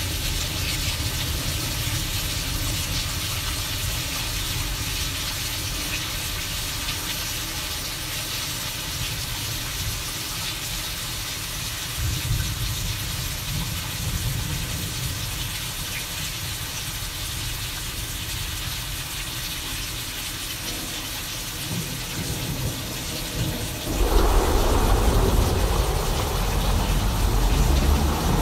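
Simulated thunderstorm: a steady hiss of rain over a low, shifting rumble. Near the end, a loud roll of thunder breaks in and keeps rumbling.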